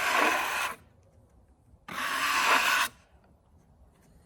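Two rough scraping swishes on freshly sawn red oak, each about a second long, a second apart.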